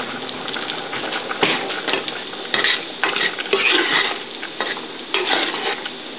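Hot water cornbread patties frying in a skillet of oil, a steady sizzle. A sharp click comes about a second and a half in, and louder irregular knocks and scrapes at the rice pot beside the skillet follow in the second half.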